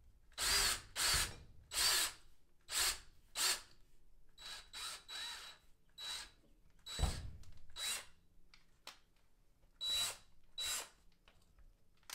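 Power drill run in about a dozen short bursts of under a second each, its motor whining with each pull of the trigger. It is boring out and widening a hole in a plastic soda-bottle cap to fit a copper pipe.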